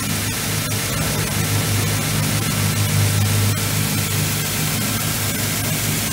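Robotic belt-grinding cell at work: a steady low motor hum under a continuous hiss from the abrasive belt grinding a workpiece held against its contact wheel by the robot, with faint scattered clicks.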